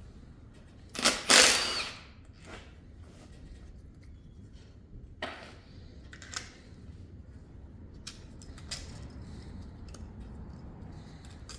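Hand tools and metal engine parts clinking and scraping as the water pump is worked loose, with one loud scraping clatter about a second in and scattered light clicks and knocks after it.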